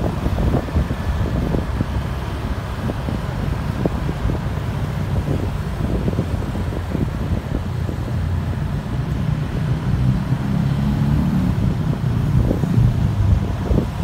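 Wind rumbling and buffeting on the microphone of a moving vehicle in motorbike and car traffic. A motor's steady hum stands out about ten seconds in, and the sound gets a little louder near the end.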